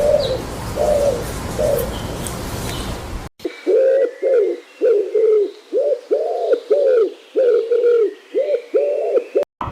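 A bird's low, short calls, repeated about twice a second. About a third of the way in there is an abrupt change to a cleaner, quicker run of the same kind of call.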